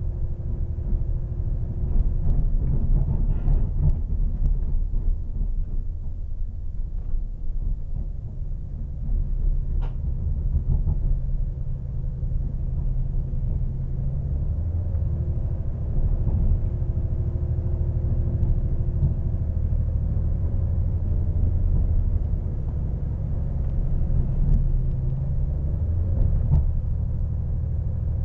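Inside a diesel passenger train under way: steady low engine and wheel rumble, the engine note changing about halfway through, with a few faint clicks from the track.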